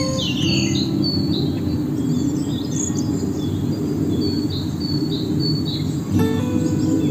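Wild birds singing, with a run of short, repeated high chirps through the middle; soft music with held notes comes in near the end.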